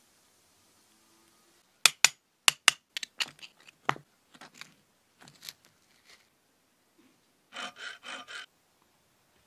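Sharp metal clinks and knocks, a few loud ones about two seconds in and then sparser and fainter, as the two-piece steel mould is split open and the bronze casting is taken out. Near the end, four quick hacksaw strokes cut the sprue off the cast bronze arrowhead.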